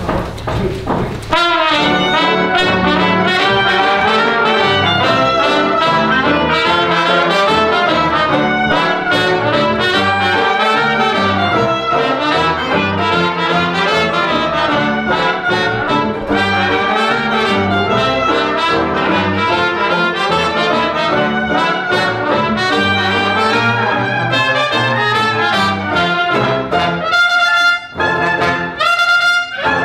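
Dixieland jazz band playing live: cornet, clarinet and trombone lead over banjo, piano and string bass. The music kicks in about a second in and has brief breaks near the end.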